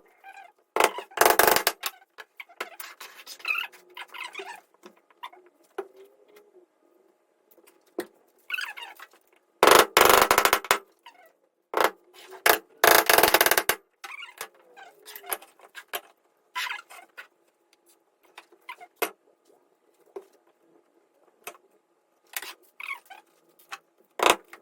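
Woodworking tool noise while joining wooden table legs: three loud noisy bursts of about a second each, around one, ten and thirteen seconds in, with scattered short knocks and clicks between them.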